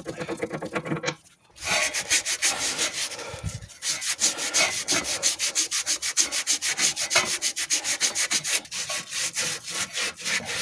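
Sandpaper rubbed back and forth by hand on the steering rack's shaft, scouring off corrosion in quick, even strokes, with a short pause a little over a second in.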